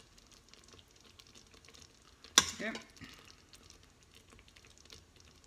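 Metal ladle scooping tomato sauce in an Instant Pot's stainless steel inner pot: quiet wet scraping and faint crackly ticks, with one sharp clink of the ladle against the pot about two and a half seconds in and a lighter one just after.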